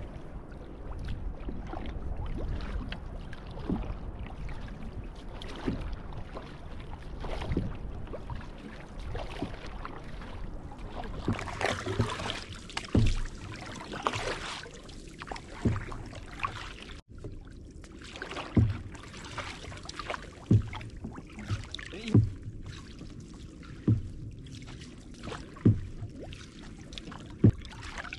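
Wooden canoe paddles dipping and pulling through calm sea water, with water rippling along the open canoe's hull. In the second half the strokes come as regular splashes roughly every two seconds.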